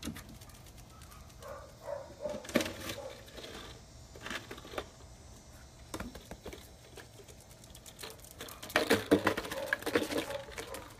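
A dog biting and crunching a bucket, giving irregular crackling and tearing sounds, with a louder run of crackling near the end.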